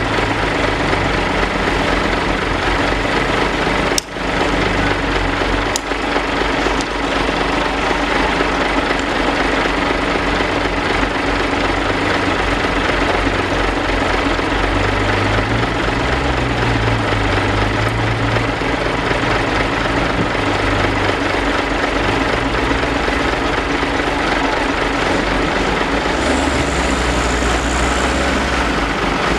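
Diesel engine of a loaded Mitsubishi Fuso dump truck running under load as it crawls through deep mud, a loud steady clatter with a brief dip about four seconds in.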